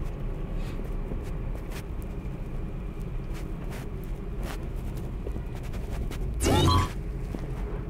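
Car cabin noise while driving in rain: a steady low rumble from the road and engine, with faint scattered ticks. A brief, louder sound with a wavering pitch comes about six and a half seconds in.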